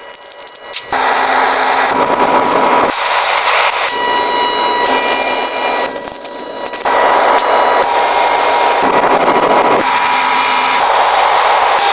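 Power tools running loudly in a run of short back-to-back clips, each a steady whirring noise with a faint whine, switching abruptly every second or two.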